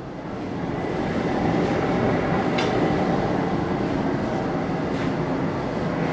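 Forge running: a steady rushing noise that builds over the first second or so and then holds, with a couple of faint clicks.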